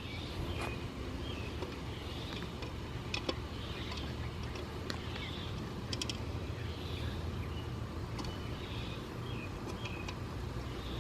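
Birds chirping faintly now and then over a low, steady rumble, with a few light clicks.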